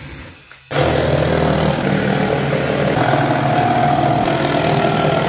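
Jigsaw starting suddenly about a second in and cutting steadily through a plywood panel.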